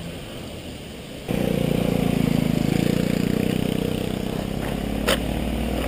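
Muffled riding noise for about a second, then a motorcycle engine idling steadily. A single sharp click comes near the end.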